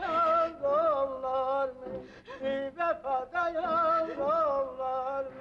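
Azerbaijani opera singing: one high voice holding long notes, with quick wavering turns in the melody about a second in and again near the end.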